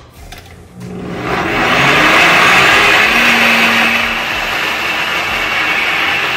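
Countertop blender motor starting up about a second in and then running steadily at full speed, blending a thick batter.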